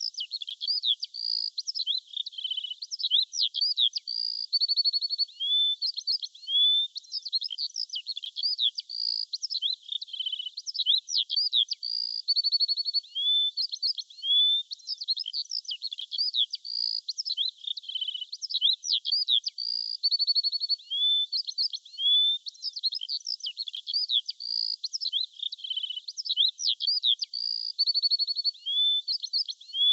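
Songbirds chirping and singing: many quick, high-pitched chirps, short gliding whistles and brief trills, one after another without pause.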